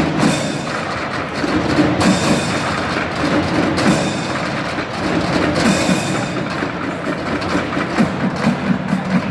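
A trash can band of children drumming with sticks on plastic and foil-wrapped trash cans, playing a fast, steady rhythm of many strikes. Louder, brighter accents come about every two seconds in the first part.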